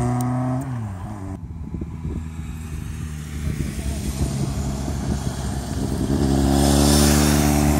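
Motorcycle engines passing through a bend. One engine rises in pitch, then drops and fades within the first second. After a quieter stretch a second motorcycle approaches under throttle and is loudest near the end.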